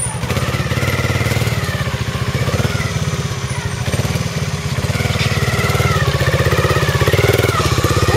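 Trials motorcycle's single-cylinder engine running at low revs, its pitch rising and falling as the throttle is worked through a rocky section. It gets a little louder in the second half.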